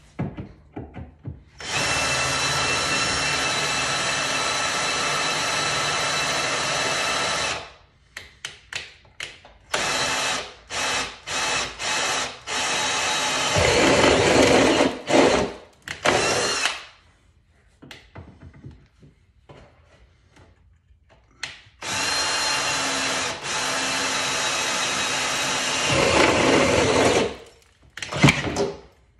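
Cordless drill driving a spot weld cutter into the sheet-metal body of a 2015 Dodge Charger, drilling out spot welds. It runs in several steady runs of a few seconds each, with short trigger pulses between them. A deeper grinding builds about halfway through and again near the end.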